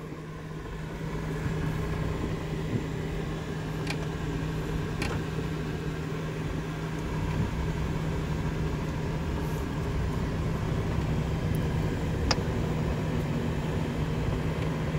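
Van driving slowly on a rough, overgrown road, heard from inside the cabin: a steady low engine hum with tyre and road noise, and a few brief sharp clicks or rattles.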